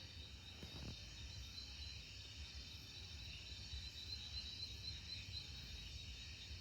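Faint crickets or similar insects trilling steadily, over a low rumble.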